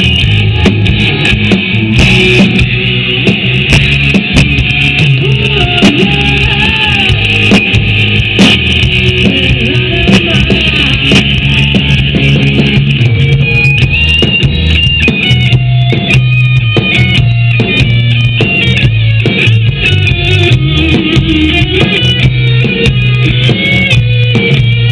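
Rock music with electric guitar, bass and drums; in the second half a lead guitar plays a run of quick, stepping notes.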